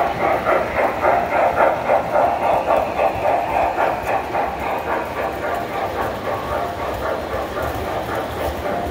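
Vintage standard-gauge tinplate toy train, a steam locomotive hauling freight cars, running past on three-rail track: a steady running noise with an even clickety-clack of about three beats a second, easing off after about five seconds as the train moves on.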